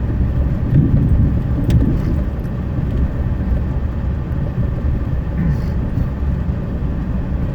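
Steady low rumble of a car driving along a road, heard without a break.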